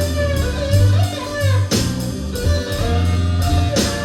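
Live slow blues: an electric guitar plays a fill of bent, gliding notes over bass and drums between sung lines.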